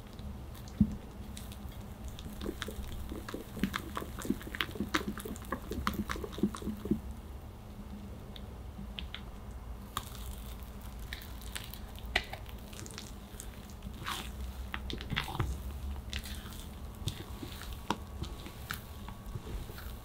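Silicone spatula folding thick cake batter in a glass bowl: wet squishing and sticky smacks of the batter, with scattered sharp clicks, the loudest about a second in.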